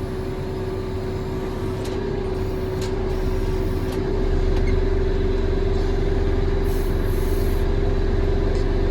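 JCB 3CX backhoe loader's diesel engine and hydraulics running steadily with a constant whine, working harder and getting louder about four seconds in as the hydraulic outriggers are lowered. A few faint clicks sound in the first four seconds.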